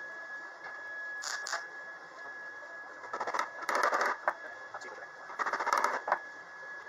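MIG welder laying short tack welds on a thin steel body patch: three bursts of crackling buzz, each under about a second long, about a second in, around three and a half seconds in, and just after five seconds in.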